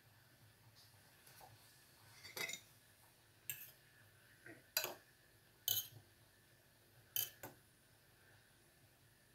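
Metal fork clinking against a cooking pot while turning palitaw rice cakes in boiling water: about seven short, sharp clicks spread irregularly over several seconds.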